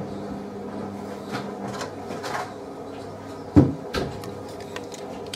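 Potato being handled in a bowl while being peeled: a few light scrapes, then two sharp knocks about three and a half and four seconds in, over a steady low hum.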